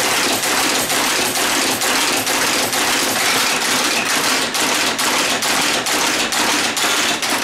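Type-casting machine running, with a steady rhythm of sharp mechanical clacks, roughly three a second, over a constant clatter.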